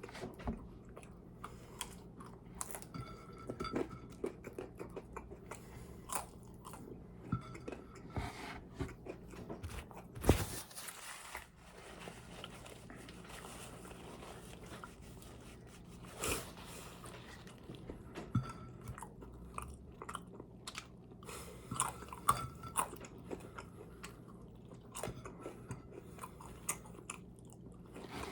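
A person chewing and biting food close to the microphone, with many short, irregular mouth clicks and crunches. A louder knock comes about ten seconds in, and another a few seconds later.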